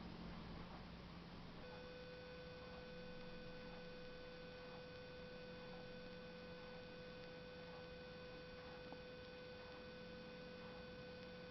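A faint, steady, high single-pitched tone that starts about a second and a half in and holds unchanged, over a low hum.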